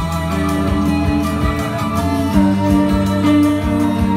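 Acoustic guitar played along with recorded music that has a steady low beat and held notes.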